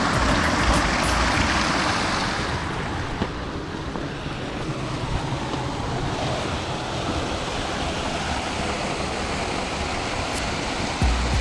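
Steady rush of flowing water, with low wind rumble on the microphone near the start and again near the end.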